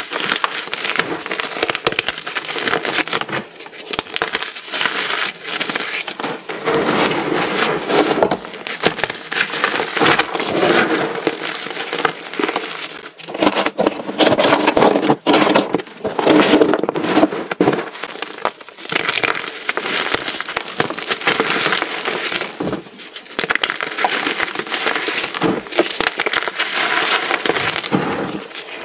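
Many small pieces of reformed, dyed gym chalk being crushed together, a continuous dense crunching and crackling of brittle chalk breaking and crumbling, louder in two stretches in the middle.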